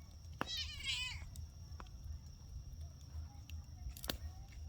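A single short, wavering, high-pitched animal call lasting under a second, with sharp pops from the burning bonfire crackling around it.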